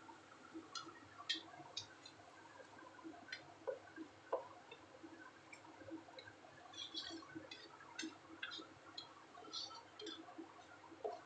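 Spatula stirring a thick, wet vegetable masala in a wok, giving faint, irregular clicks and taps against the pan with soft wet squelching of the simmering mixture.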